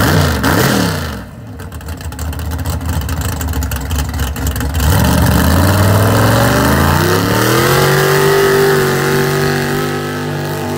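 Pulling truck, a 1957 Chevy pickup, at full throttle hauling the weight-transfer sled down the dirt track. A sudden loud start and a few seconds of rough crackling noise are followed by the engine note climbing steadily under load, then holding high.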